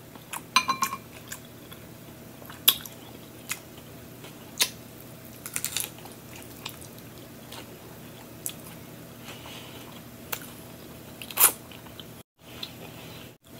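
Close-miked eating: crisp bites and chewing of a lettuce-leaf wrap of rotisserie chicken salad, with scattered wet mouth clicks and crunches at irregular moments. A short ringing clink comes near the start, and the sound cuts out twice briefly near the end.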